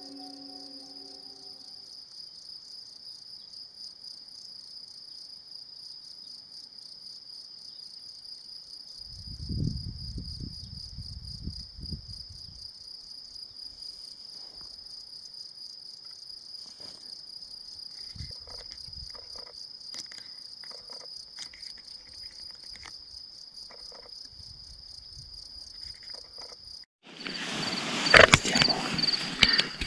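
Crickets chirring steadily in a fast, even pulsing trill, with a brief low rumble about a third of the way in. Near the end the trill is drowned by loud, close rustling and handling noise.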